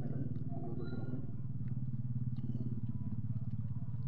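A small engine running steadily at an even speed, with a few faint clicks over it.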